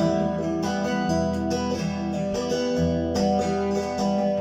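Instrumental break in a song: acoustic guitar strumming chords in a steady rhythm, with no singing.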